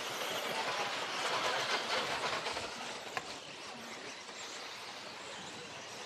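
Electric 1/10-scale 2WD RC buggies racing on an artificial-grass track, a rushing noise that swells about two seconds in as they pass close, then fades. A single sharp click a little after three seconds.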